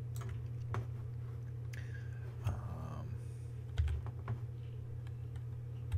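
Scattered clicks of a computer keyboard and mouse, a few at irregular intervals, over a steady low electrical hum.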